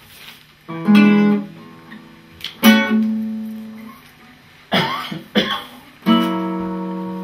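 Guitar strummed in slow, separate chords, each left to ring and fade. One comes about a second in and another near three seconds. Two short strokes follow around five seconds, then a last chord about six seconds in rings on to the end.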